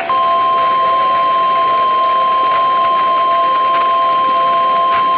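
Emergency alert attention tone: a single loud, steady, high-pitched tone that switches on just after the start and holds without a break, over a faint hiss of static.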